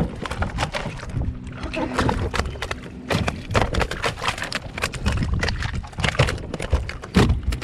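A hooked halibut thrashing and splashing beside a kayak as it is lifted by the line, with many irregular knocks against the hull.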